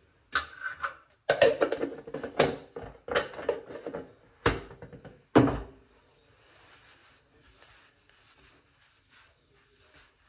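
A quick run of knocks and clatters from hard objects being handled and set down, about a dozen in the first six seconds, several with a short ring. Faint rustling follows.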